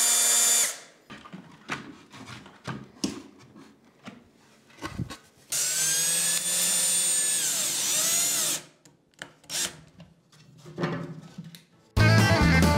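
Cordless drill-driver in two runs: a short run ending under a second in, then a run of about three seconds around the middle whose whine rises and falls in pitch, with clicks and knocks of handling between them. Acoustic guitar music starts near the end.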